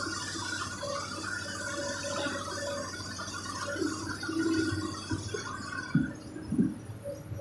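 Excavator's diesel engine and hydraulics running steadily, with a few knocks about six seconds in.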